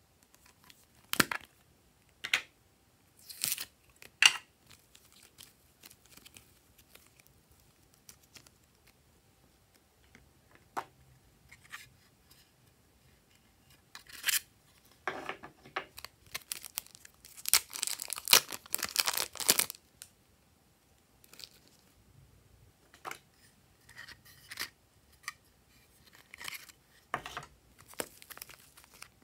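Hands handling small plastic and foam pieces: scattered clicks, taps and scrapes, with a dense run of crinkling, tearing-like noise about 17 to 20 seconds in.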